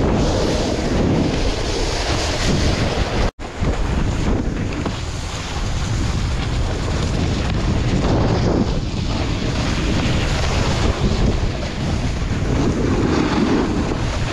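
Wind rushing over the action camera's microphone while snowboarding downhill, mixed with the board's edges scraping over packed snow. The sound cuts out abruptly for an instant about three seconds in.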